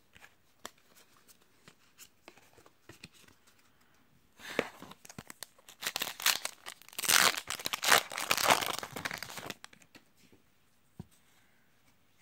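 A foil Yu-Gi-Oh! booster pack wrapper being torn open and crinkled, the loud rustling running for about five seconds in the middle, with light card-handling clicks before it.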